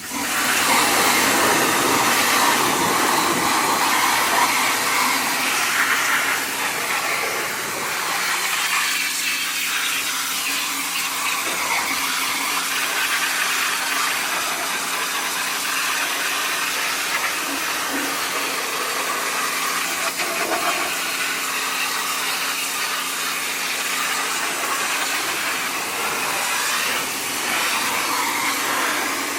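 A high-pressure spray starts abruptly and hisses steadily against an engine cylinder head, cleaning off the grime. From about eight seconds in, a steady low motor hum runs under the hiss.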